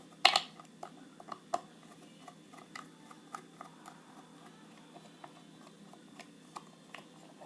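A screwdriver working at the back of a five-pin lock cylinder to take it off. There is a sharp metal click just after the start, then light, irregular clicks and ticks.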